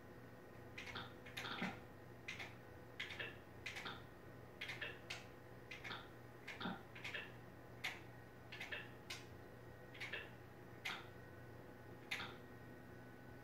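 Faint, irregular light clicking and ticking, about one to three clicks a second, over a steady low appliance hum.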